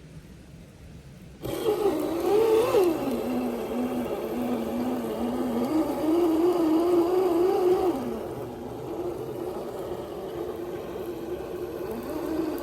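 Small electric motor of an RC off-road crawler whining, starting suddenly about a second and a half in, its pitch rising and falling in steps.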